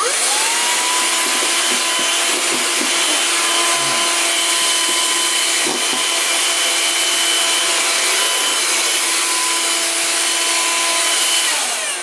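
Handheld 12-volt car vacuum cleaner switched on, its motor whining up to speed and then running steadily with a rush of air as it sucks up scraps of paper. Near the end it is switched off and the whine falls away.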